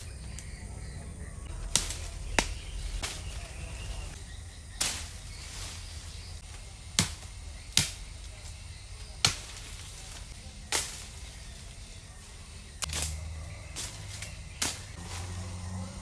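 Machete cutting saplings and undergrowth: about ten sharp chops at uneven intervals.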